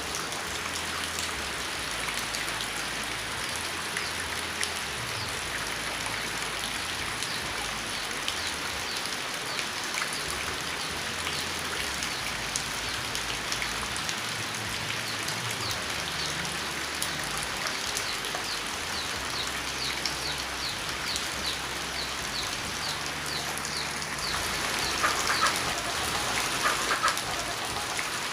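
Rain falling steadily, with individual drops ticking on surfaces. Near the end comes a brief, somewhat louder stretch of sharper ticks.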